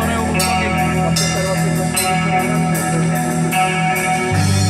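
Live rock band playing: electric guitars over bass and drums, with regular cymbal hits. Near the end the bass drops to a lower held note.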